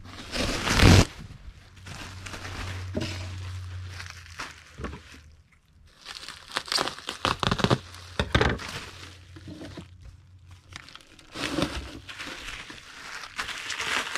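Plastic bubble wrap crinkling and rustling as a sheet is pulled off a roll and folded by hand, with a loud rip about a second in and scattered knocks of handling.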